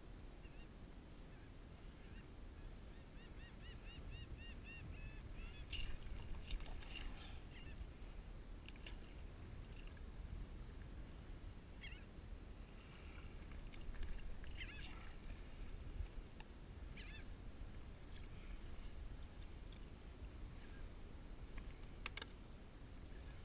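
Sharp knocks and splashes of a bluefish being gripped and landed against a plastic fishing kayak's hull, about five in all, the last as the fish is lifted aboard, over a steady low rumble of wind and water. A run of short high squeaks comes about three to five seconds in.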